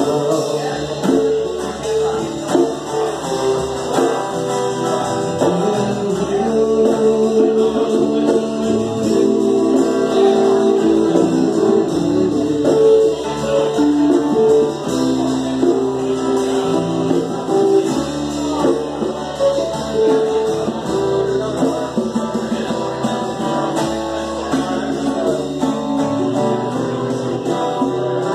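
A live band playing through PA speakers: electric guitars, electric bass and keyboard, with a male voice singing.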